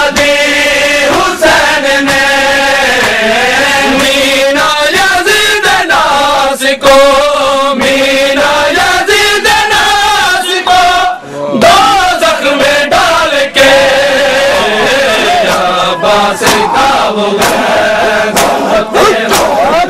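A crowd of men chanting a Shia noha (Muharram lament) together in long held notes, with sharp, repeated slaps of chest-beating (matam) throughout.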